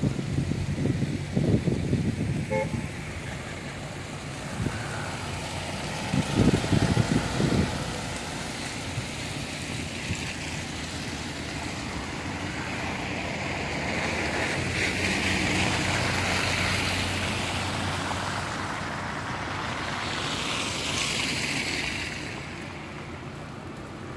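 Cars driving past on a snow- and slush-covered street, their tyres hissing as they pass. Wind gusts buffet the microphone in the first few seconds and again at about six to eight seconds in.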